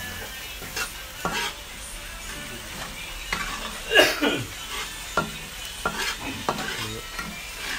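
Metal spatula scraping and stirring ground spice paste frying in oil in a black iron wok: a steady sizzle under irregular scrapes against the pan, with one louder scrape about halfway through.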